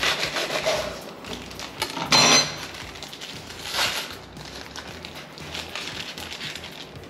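Kitchen clatter of dishes and utensils being handled during food preparation, with a louder ringing clink about two seconds in and scattered lighter knocks after it.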